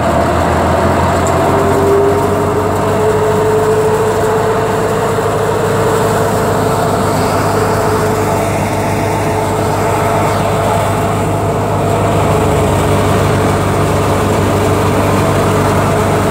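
Wheat thresher running steadily under load as wheat straw is fed in: a loud, even mechanical drone with a whine that sags slightly in pitch in the first few seconds.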